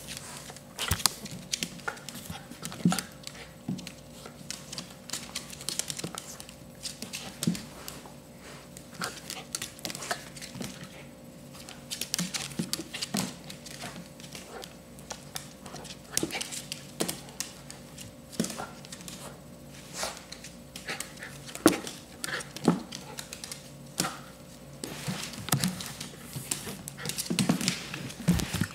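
A small fluffy dog and a cat play-fighting on a hardwood floor: scattered scuffles and clicks of paws and claws, with the dog panting.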